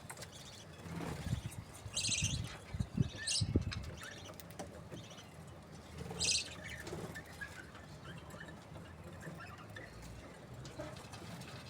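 Budgerigars chirping in short bursts, with three louder ones about two, three and six seconds in. Soft low thumps come in the first few seconds.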